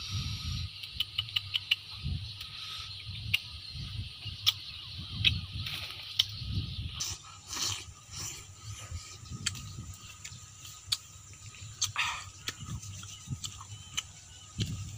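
A rambutan being peeled and eaten up close: a quick run of sharp clicks and crackles as the rind is torn open, then scattered clicks and short rustling bursts of chewing and mouth sounds. A steady insect drone runs underneath.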